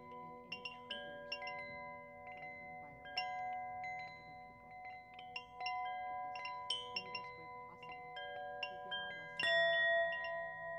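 Chimes ringing: many metal notes at different pitches struck at irregular moments, each ringing on and overlapping the others. A louder strike comes about nine and a half seconds in.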